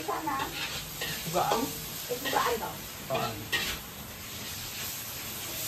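Chicken and ground spice paste sizzling in a wok over a gas burner while a spatula stirs it, scraping the pan about five times in the first three and a half seconds, then a steady sizzle.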